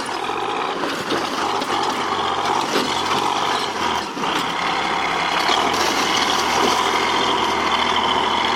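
Heavy machine's engine running hard and steadily as the machine crawls along under load, with mechanical clatter over the engine note.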